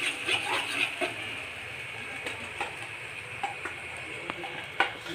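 Ground masala paste sizzling steadily in hot oil in a metal pan, with a metal spoon scraping and clinking against the pan during the first second and a few single clinks after that, the sharpest one near the end.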